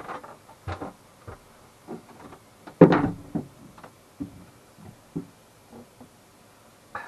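Irregular knocks and clunks of a sailboat's overhead cabin hatch being worked by hand from below, with the loudest, a short rattling clatter, about three seconds in.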